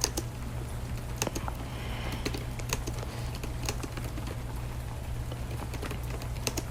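Typing on a computer keyboard: irregular, scattered keystrokes over a steady low hum.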